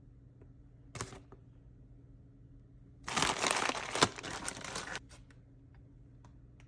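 Plastic food packaging crinkling as it is handled: a brief rustle about a second in, then about two seconds of steady crinkling with one sharp click in the middle, followed by a few light ticks.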